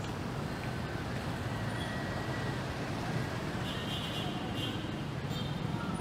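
Busy city street ambience: a steady rumble of road traffic, with a brief high-pitched squeal about four seconds in.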